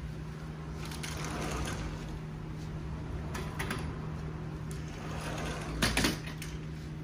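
Hands being rubbed with gymnastic chalk: scraping and crunching rubs, a few small clicks, and a louder slap or knock about six seconds in, over a steady low hum.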